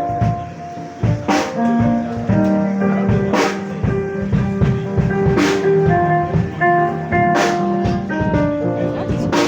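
Music on keyboard and drum kit: held keyboard notes change pitch over a steady beat, with a sharp hit about every two seconds.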